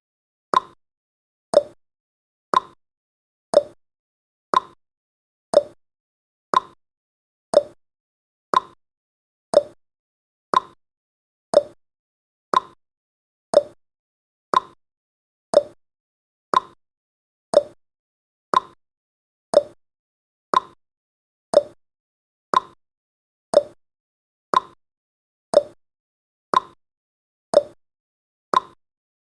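Countdown timer's ticking sound effect: a short, sharp tick once a second, alternating slightly lower and higher in pitch like a clock's tick-tock.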